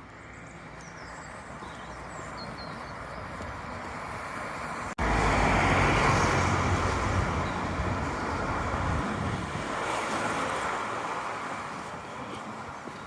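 Road traffic: a vehicle running past with a steady rushing noise. It grows slowly, jumps abruptly louder about five seconds in, then fades toward the end.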